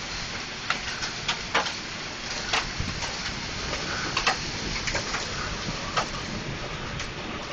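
Steady rain hiss with irregular sharp taps of drops striking a hard surface, about eight in the stretch.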